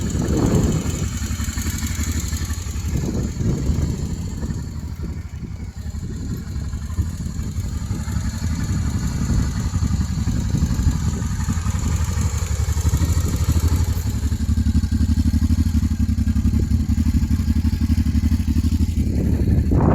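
Honda Transalp XL600V's V-twin engine running as the motorcycle is ridden, dropping back after the first second and building again in the second half.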